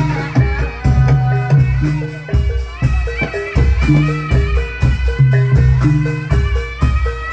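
Live traditional Javanese folk music: an ensemble plays a repeating cycle of short, low pitched percussion notes with drum strokes, a rattling shaker and a high melody line over the top.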